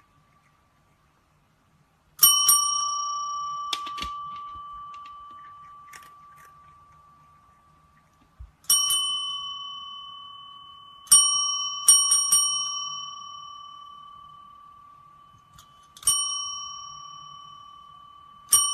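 A small metal bell struck several times, sometimes twice in quick succession, each ding ringing on and slowly dying away.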